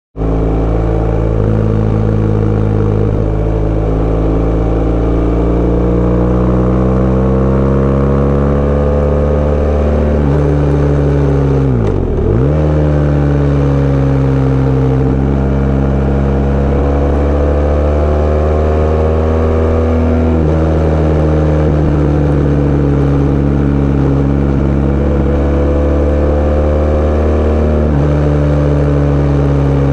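Sport bike engine running under way, its revs drifting gently up and down. The pitch steps up sharply about ten seconds in and again about twenty and twenty-eight seconds in, and dips briefly and recovers about twelve seconds in.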